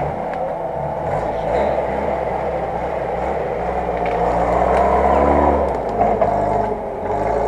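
UAZ-469 off-roader's engine pulling under load as it climbs a steep muddy bank, revving up and getting louder around the middle, then easing off toward the end.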